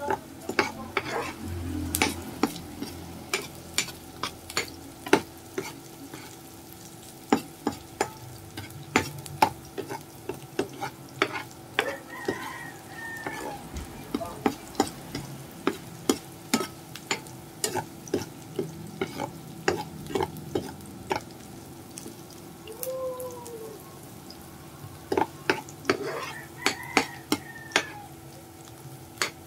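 Sliced red onions sizzling in oil in a nonstick frying pan while a metal spoon stirs them, with frequent sharp clicks and scrapes of the spoon against the pan.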